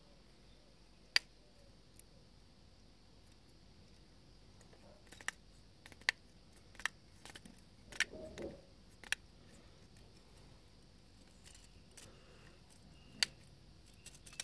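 Scattered sharp clicks and taps, about seven loud ones with softer ones between and a brief rustle near the middle, from a pair of 20x jeweler's magnifier loupe glasses being handled and adjusted.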